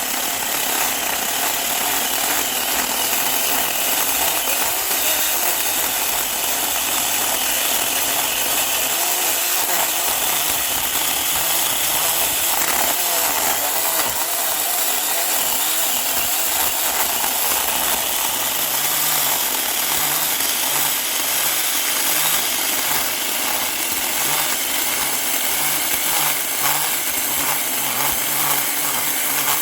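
Saker 4-inch cordless electric mini chainsaw running continuously under load, its chain cutting through a holly trunk about 4 inches thick.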